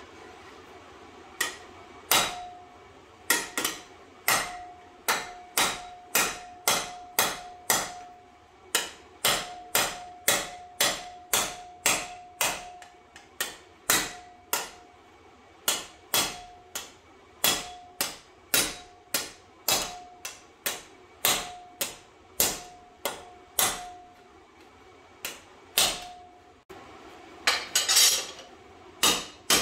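A hammer strikes a steel plate clamped in a bench vise again and again, about one and a half blows a second, and the plate rings briefly after many blows. The blows are hammer-forming a bent radius into the edge of a steel frame repair plate. After a short pause near the end, the blows come quicker.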